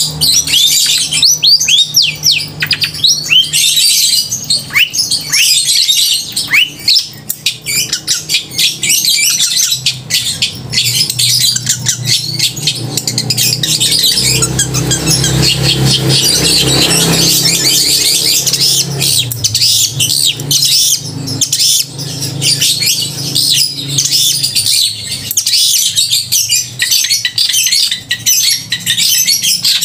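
Long-tailed shrike (cendet) singing nonstop: a loud, rapid chatter of high, harsh notes mixed with quick downward-sliding whistles. A steady low hum runs underneath.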